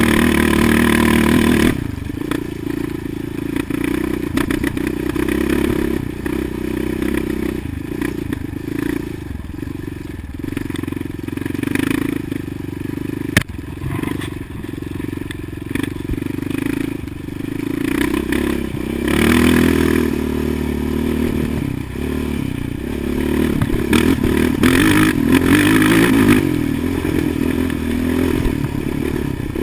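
Yamaha Raptor sport quad's engine running under the rider, revving up and easing off several times as it is ridden over sand, heard close from a chest-mounted camera. A single sharp click a little before the middle.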